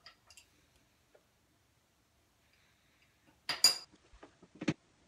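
Metal clinks from a ratcheting screwdriver and its socket being handled and knocked against the refrigerator's fittings: a few faint clicks at the start, a loud quick clatter of clinks about three and a half seconds in, and one more knock about a second later.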